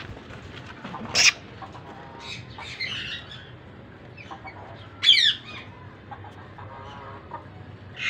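Chicken clucking: a few short calls, a sharp one about a second in and the loudest about five seconds in, with fainter clucks between.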